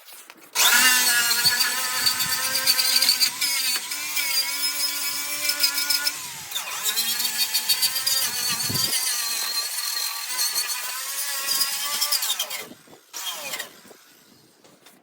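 Power tool spinning a wire wheel against the truck's sheet metal, scraping off old seam sealer where the new, larger hinges will sit. The motor whine starts about half a second in, dips briefly near the middle and stops about two seconds before the end.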